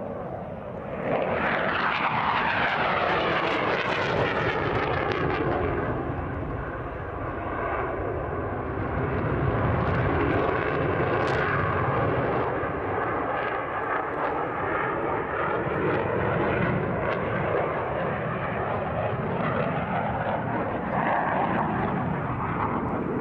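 Single-engine JF-17 Thunder fighter jet, its RD-93 turbofan roaring as it flies a display pass. The roar swells about a second in and its whine falls in pitch as the jet passes, then stays loud and steady.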